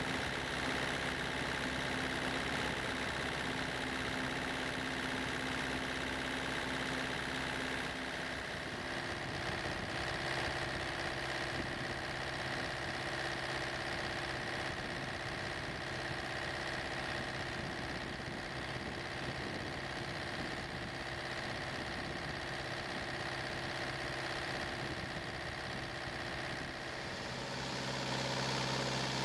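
Kubota V2203 2.2-litre four-cylinder diesel engine running steadily at low idle.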